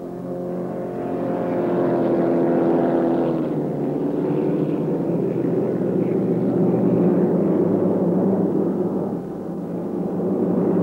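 Offshore racing powerboat's engine running hard at racing speed, a steady drone that shifts pitch a few seconds in and dips briefly near the end before coming back up.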